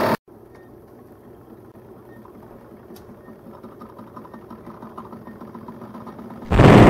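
Model warship's small mechanism running with a faint, even mechanical whir, then, about six and a half seconds in, a loud cannon boom that fades slowly as the guns are fired.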